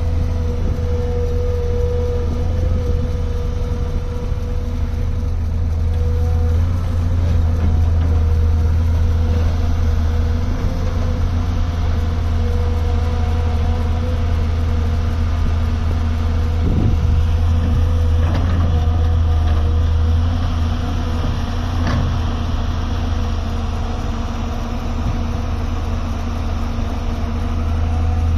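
Diesel engine of a Volvo 170-class excavator running steadily with a deep, even drone, with a few faint knocks in the second half.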